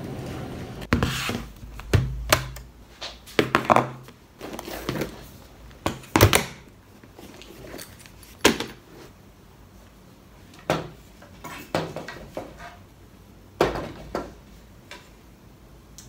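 A series of irregular knocks and clatters of hard objects, about a dozen spread unevenly, some in quick pairs.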